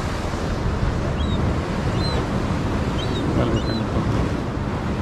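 Wind buffeting the microphone over steady surf noise from waves on the rocks, with a few faint, short high chirps.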